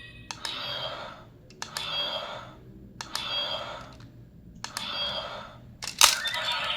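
Ultraman Omega DX transformation device clicked four times, each click followed by a short electronic sound effect of about a second from its small speaker: the Belial star stone's effects. A louder clack about six seconds in sets off a longer, louder effect.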